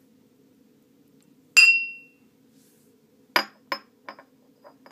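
Glassware clinking: one loud, ringing clink about a second and a half in, then a few lighter clicks and knocks.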